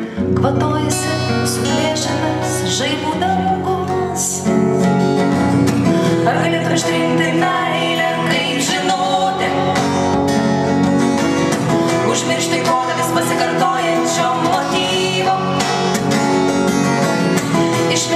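Several acoustic guitars played together as a live song, strummed and picked; the playing gets fuller and louder about four and a half seconds in.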